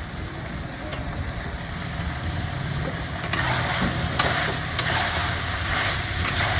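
Chicken pieces sizzling as they fry in hot oil in a pan, the sizzle growing louder about three seconds in, with a few sharp clicks of a utensil against the pan. A steady low hum runs underneath.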